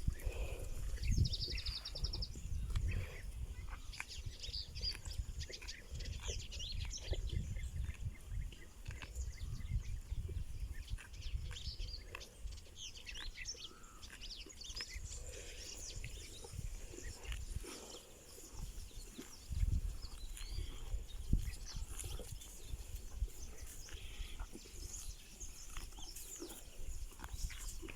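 Small birds chirping repeatedly over an uneven low rumble from the open air.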